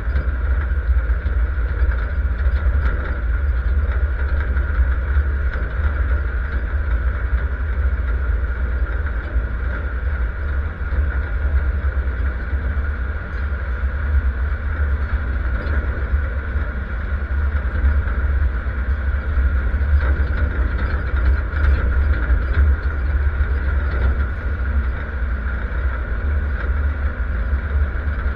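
GAZ-69's four-cylinder engine running with a steady low rumble, heard from on or in the vehicle.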